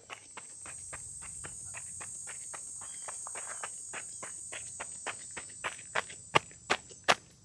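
Running footsteps on a dirt and gravel infield, about three strides a second, growing louder as the runner comes close, with the loudest footfalls near the end. Insects drone steadily and high-pitched behind them.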